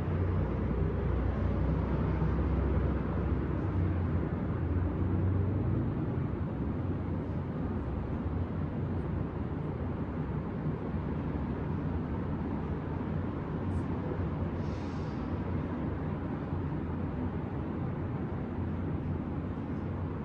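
Steady city traffic rumble and hum, a little louder for the first few seconds, with a brief hiss about fifteen seconds in.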